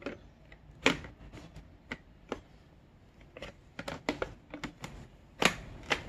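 Hard plastic clicks and knocks from a battery pack being slid into the body of a Dibea D008Pro cordless handheld vacuum, with two louder knocks, about a second in and near the end.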